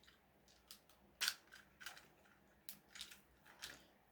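Faint, scattered crinkles and clicks of a small plastic candy wrapper being pulled and worked at by hand in an effort to open it. The loudest crinkle comes about a second in.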